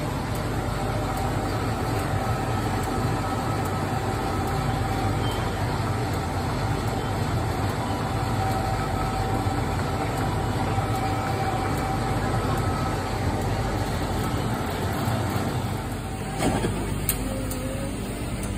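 Steady machine hum with a faint whine from running drink or refrigeration machinery. It changes about sixteen seconds in, with a sharp click.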